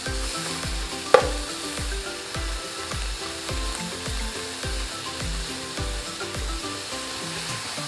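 Chopped bacon sizzling as it fries in a nonstick pan and is stirred with a plastic spoon, with one sharp click of the spoon on the pan about a second in. Background music with a steady beat, about two beats a second, plays underneath.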